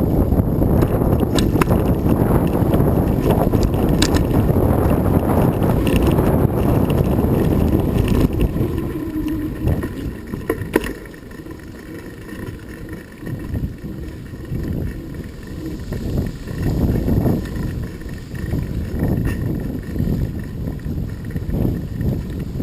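Wind rushing over the microphone while riding: a heavy, steady rumble for the first eight or nine seconds, then easing into lighter, uneven gusts with a few faint clicks.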